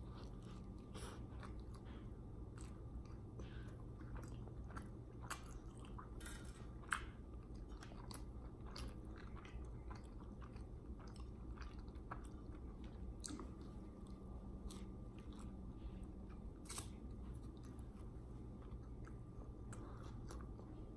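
Close-miked chewing of a soft bread sandwich filled with spicy red pepper tuna, with many small wet mouth clicks. One sharper click comes about seven seconds in.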